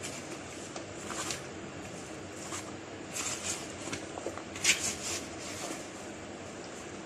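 A spatula stirring chopped apple, chicken and cheese salad dressed with cream and mayonnaise in a plastic bowl: irregular scraping strokes against the bowl, the loudest a little before five seconds in, over steady background noise.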